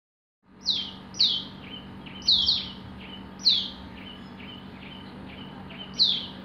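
Birds chirping: a loud, sharply falling chirp comes about six times, with softer short chirps between them, over a steady faint background hiss.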